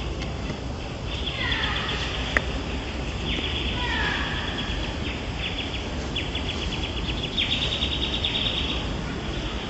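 Outdoor wildlife ambience: repeated buzzy trills, each a second or two long, with a few falling chirps early on and again around the middle, over a steady low rumble. A single sharp click sounds a couple of seconds in.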